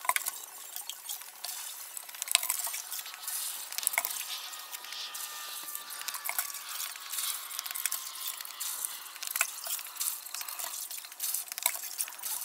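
A plastic bucket clunks at the rim of a septic tank opening at the start, then a steady crackling, fizzing noise with scattered small clicks. A faint tone slowly falls in pitch through the middle.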